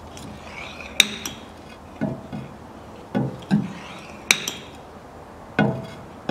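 Hand oil pump being worked in slow strokes, pushing gear oil through a tube into the transmission: a sharp click about every three seconds, with duller clunks in between.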